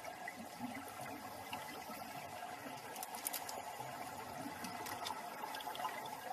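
Steady watery noise with a few faint clicks about three and five seconds in.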